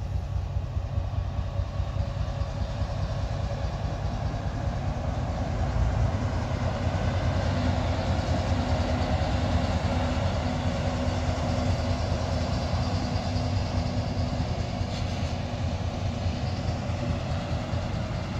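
CSX diesel-hauled freight train passing on the bridge: the locomotive's low engine rumble swells about six seconds in and holds a steady drone, then intermodal trailer cars roll by.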